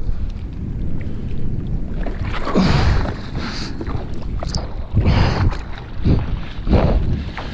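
Sea water splashing and washing around a surfer and his board in uneven surges, over a steady rumble of wind buffeting the microphone.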